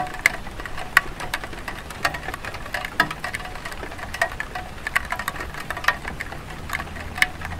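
Light rain on a clay tile roof: a soft steady hiss with irregular drops and drips ticking from the eaves, several a second.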